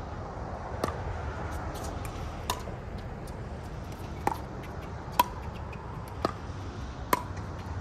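Pickleball paddles striking a hard plastic ball back and forth in a rally: about six sharp, ringing pocks roughly a second apart, with fainter clicks between them.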